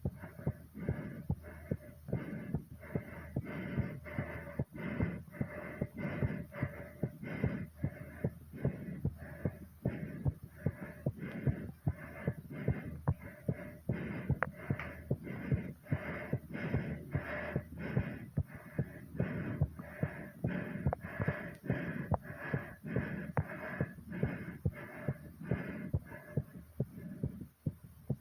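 A fast, pounding heartbeat raised by exercise, about two beats a second, with hard breathing.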